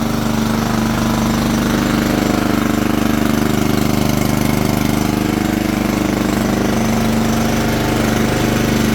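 Toro-branded Loncin lawn mower engine running steadily with an even, unchanging note, having started on the first pull now that its auto choke is no longer jammed open by a twig.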